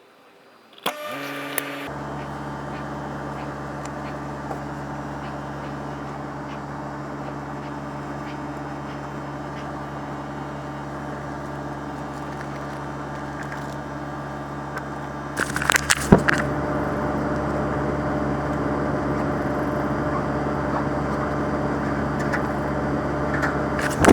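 A motor-driven machine starts with a thump about a second in, then runs steadily with a low hum. About fifteen seconds in it gets louder, with a few sharp knocks.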